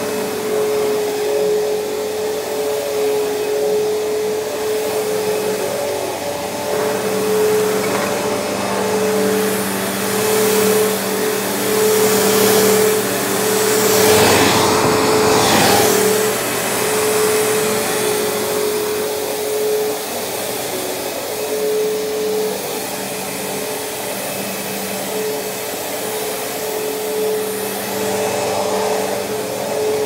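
Bissell CleanView 8975 upright vacuum running as it is pushed back and forth over carpet, its motor giving a steady whine under the rush of air and brushroll on the pile. The rushing noise swells louder for several seconds around the middle.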